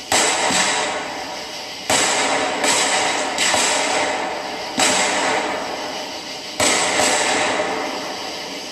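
Aerial fireworks shells bursting overhead: about eight sharp bangs at uneven intervals, some close together, each trailing off over a second or more into the next.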